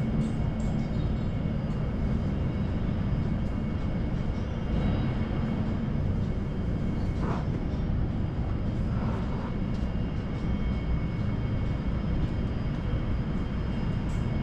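Indoor store ambience: a steady low rumble of air-handling noise with faint steady high tones. A couple of faint brief sounds come about halfway through.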